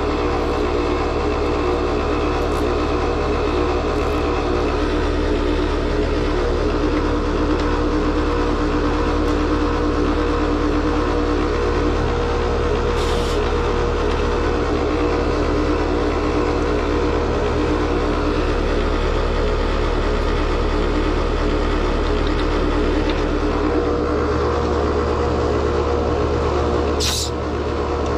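Outdoor unit of an R-410A heat pump running steadily, its scroll compressor making a harsh mechanical noise that sounds horrible, as if it is about to come apart: the sign of an internal mechanical failure, the compressor barely pumping and drawing only 3.6 amps. A brief sharp noise near the end.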